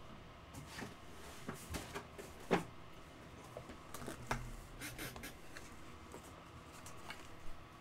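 Scattered light clicks, taps and rustles of card supplies and packaging being handled on a desk, with one sharper click about two and a half seconds in and a soft thud a couple of seconds later.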